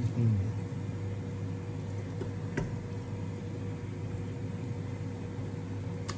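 A steady low mechanical hum, with one faint click about two and a half seconds in as tongs set a rib down on the wire rack.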